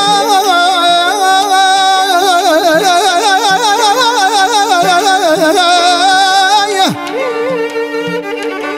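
Azerbaijani traditional music: a heavily ornamented melody with fast, wavering vibrato over a steady held drone and a soft low beat. About seven seconds in the melody breaks off with a sharp downward slide and the music turns quieter.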